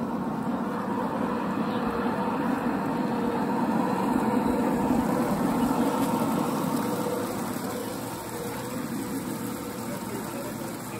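G scale model electric locomotive and coaches rolling along garden railway track: a steady rumble of wheels on rail with a faint motor hum, loudest about halfway through as the train passes closest, then fading.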